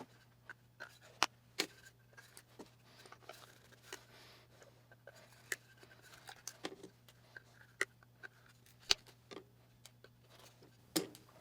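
Scattered light clicks and taps from handling a corded electric brad nailer and stapler, with a faint steady low hum underneath.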